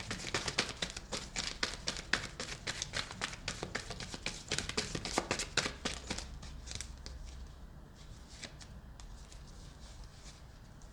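A deck of tarot cards being shuffled by hand: a quick run of dense papery clicks for about six seconds, then scattered fainter clicks as the cards are handled.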